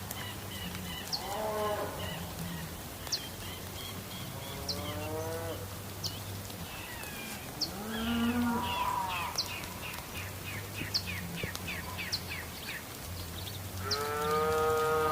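Cattle mooing: four drawn-out calls that rise and fall in pitch, the last and loudest near the end. Between them come rapid short chirps and sharp high ticks over a steady background hiss.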